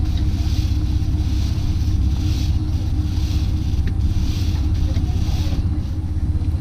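A chain-cleaning brush and rag scrubbing a motorcycle drive chain, a hissy stroke about once a second. Under it runs a louder, steady low motor drone.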